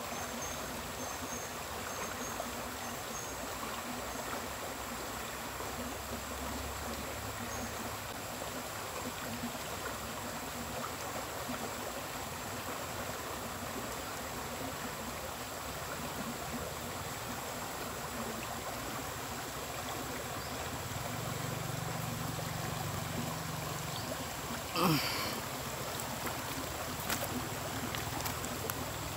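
Small stream running steadily. About 25 seconds in, a short sound sweeps quickly down in pitch, with a few faint clicks after it.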